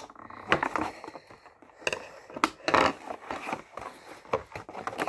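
Toy figure packaging being handled and pulled at: irregular rustles, scrapes and clicks as the pieces are worked out of the box.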